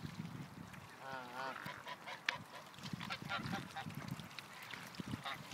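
A dense flock of mute swans and mallards calling, with short calls scattered throughout and one wavering call about a second in.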